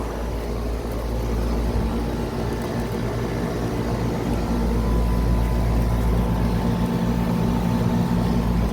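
Outdoor air-conditioner condensing units running in cool mode: a steady compressor hum under the whoosh of the condenser fan. A low tone in the hum grows stronger about halfway through.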